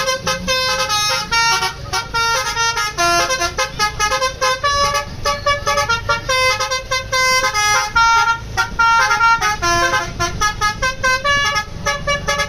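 Basuri V3 musical telolet horn on a bus playing a quick tune of short stepped notes without a break, over a low rumble.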